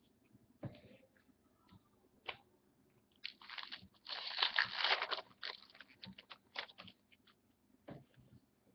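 Foil trading-card pack wrapper being crinkled and torn open: a dense crackling rustle starting about three seconds in and lasting a few seconds, with scattered light taps and clicks of card handling before and after.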